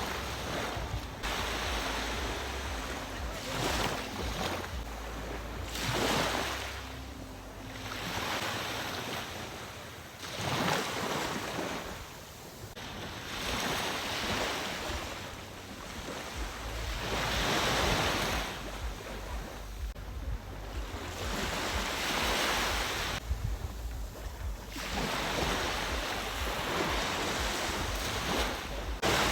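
Ocean waves breaking and washing in, surging and falling away every few seconds, with wind rumbling on the microphone.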